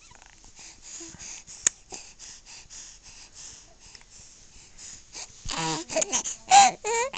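Young baby breathing in short, wheezy breaths, with one sharp click early, then from about five and a half seconds breaking into loud, high-pitched, wavering fussy vocalizing.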